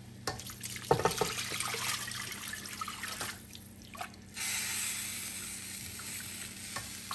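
Water running into a cooking pot to fill it. A knock about a second in, then the water flows for about two seconds, stops briefly, and runs again steadily from about halfway on.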